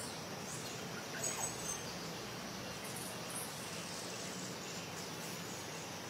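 Steady forest ambience with a constant hiss of insects, and a few short, high bird calls a little over a second in, with fainter ones near the middle.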